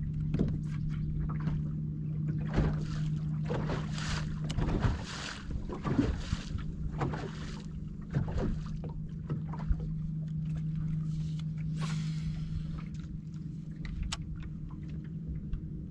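Bass boat's electric bow trolling motor humming steadily, with water lapping and slapping against the hull now and then.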